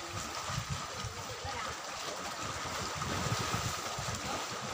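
Sea waves washing against the rocks below a cliff, a steady rushing hiss, with wind buffeting the microphone in low, uneven rumbles.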